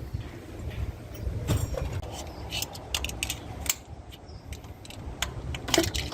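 Irregular metallic clicks and clinks of hand tools and metal engine parts being handled while an engine is stripped down, over a low rumble.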